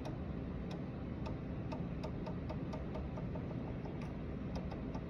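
Rotary switch knob on a Tektronix 2205 oscilloscope being turned detent by detent: a dozen or so small, irregularly spaced clicks over a steady low hum.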